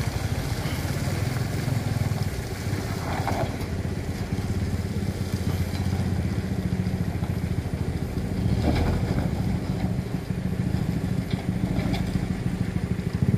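Light dump truck's engine running steadily at low speed as the truck crawls through deep mud ruts, a steady low hum that swells a little about two-thirds of the way through.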